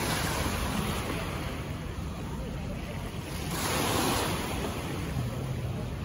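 Small sea waves washing against the shore, with wind rumbling on the microphone; the wash swells louder about three and a half seconds in.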